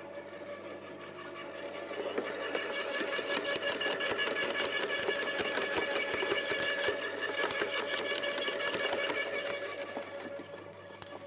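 Electric turbine-cutter garden wood chipper running with a steady motor whine, crunching and snapping as branches are fed in. The chipping gets louder about two seconds in and eases off near the end.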